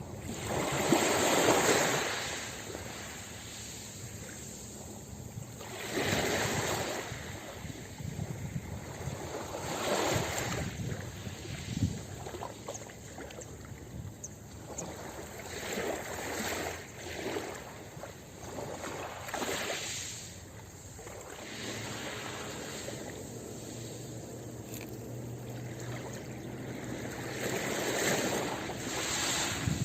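Ocean waves breaking on a beach, surging and washing back in uneven swells every few seconds, the loudest about a second in.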